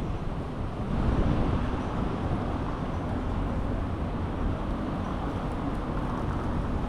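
Steady city-street noise: a low, even rumble of road traffic.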